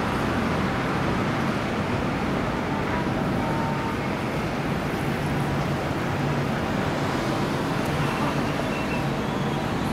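Steady city street ambience: road traffic noise, an even, continuous rumble and hiss.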